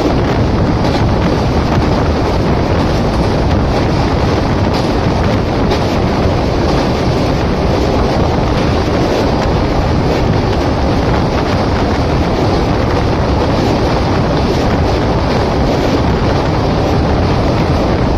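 Passenger train running at speed, heard from an open window as a loud, steady rush of rail and wheel noise with wind buffeting the microphone.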